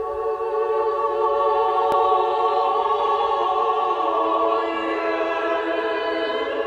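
Choral music: a choir singing long, sustained chords with a slight waver, the harmony shifting about four seconds in.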